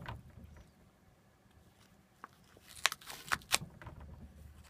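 A cat tearing at the paper of a fusuma sliding door with its teeth and claws: after a quiet start, a run of sharp crackling rips begins about two seconds in.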